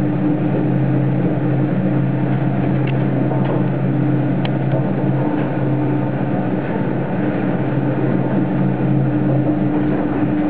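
Paternoster elevator drive machinery running in its machine room: the large toothed drive wheel turning with a steady mechanical hum, and a few faint ticks in the first half.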